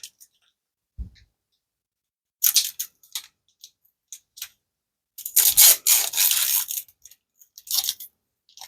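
Foil trading-card booster pack crinkling and tearing in several bursts as it is worked open, the longest and loudest burst about halfway through. It is a stubborn wrapper that is hard to tear open.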